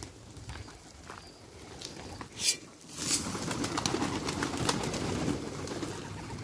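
Domestic pigeons and hens feeding: scattered light pecking clicks. About two and a half seconds in comes a short sharp sound, then a flurry of wing flapping lasting about two seconds as pigeons take off.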